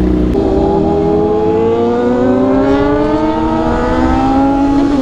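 Motorcycle engine pulling under steady throttle, its pitch rising slowly and smoothly as it gains speed.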